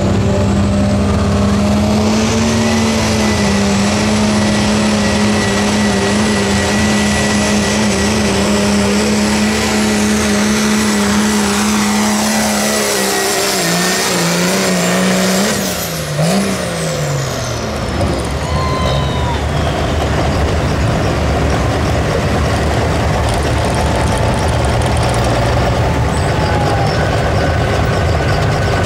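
Turbocharged diesel pickup truck engine held at full throttle under heavy load, a steady high pitch with a high turbo whistle over it. About halfway through the revs drop away, the turbo whistle winds down, and the engine settles to a lower, steadier run toward idle.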